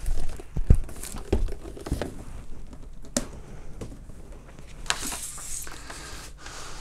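Unboxing handling noise: a cardboard box is moved aside with a few dull knocks in the first two seconds, then paper instruction leaflets rustle and crinkle as they are handled, with one sharp click a little after three seconds in.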